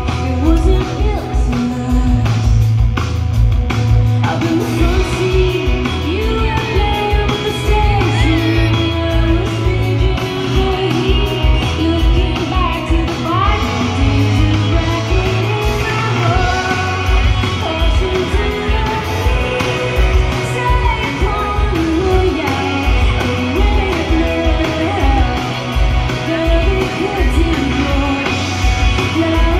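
Indie pop band playing live: a female lead vocal sings over electric guitars, keyboard and bass, with a steady drum beat throughout, heard from the audience.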